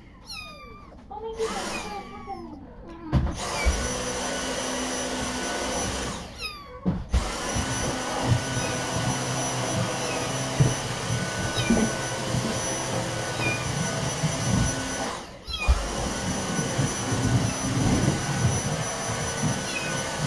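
Vacuum cleaner running steadily with a whine, starting about three seconds in and dropping out briefly twice. Kittens meow before it starts.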